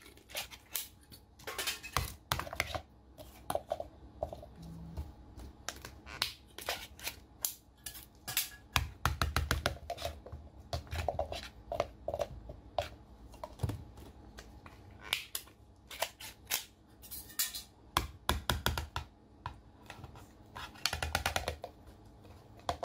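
Sea snails in their shells, glazed in sauce, being tipped out of a glass jar onto a plate: irregular clicks and clatter of hard shells against glass and against each other, in quick clusters, with a few duller knocks.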